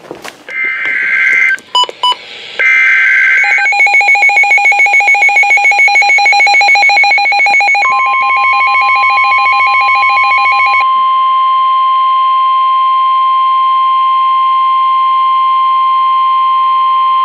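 A NOAA Weather Radio alert coming in on a weather radio, here for a severe thunderstorm warning. It opens with two short bursts of the warbling SAME data header, followed by the radio's rapid pulsing alarm beep. About eight seconds in, the steady 1050 Hz warning alarm tone starts and holds, and the pulsing beep stops a few seconds later.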